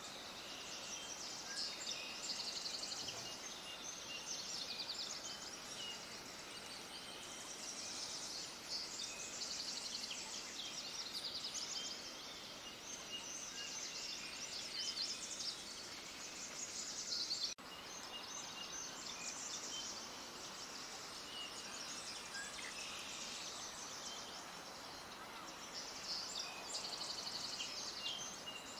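Many small birds chirping and twittering together in a dense, continuous chorus of rapid high-pitched notes, broken by a momentary gap about two thirds of the way through.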